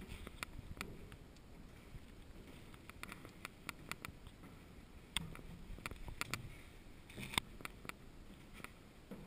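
Footsteps on a wooden staircase: irregular taps and knocks of feet on the wooden steps, with a louder knock about seven seconds in, over a low rumble.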